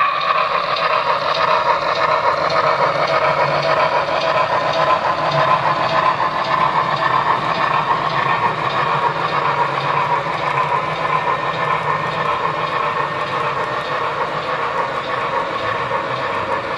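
Model steam locomotive hauling a string of hopper cars, the train rolling steadily along the track past the listener.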